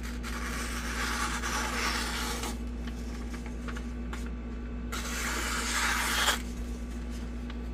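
Cold Steel FM-1 folding knife blade slicing through thin catalog paper, a rasping hiss as the edge runs through the sheet: two long cuts, the first in the opening two and a half seconds, the second about five seconds in. It is a sharpness test, and the blade cuts very sharp.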